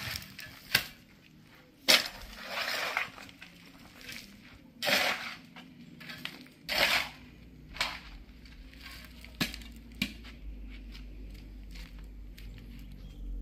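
Irregular sharp knocks and short crunching, scraping rustles, like hard materials being handled and shifted. A low steady rumble comes in about halfway.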